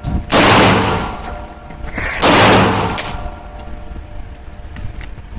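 Two pistol shots about two seconds apart, each a sharp crack that rings and echoes away over about a second.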